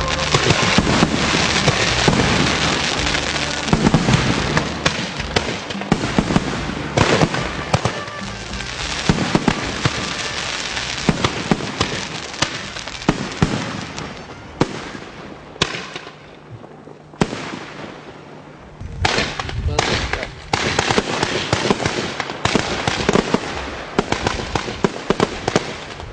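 Fireworks going off: dense crackling and popping over a steady hiss, thinning out about fifteen seconds in and building back up again a few seconds later.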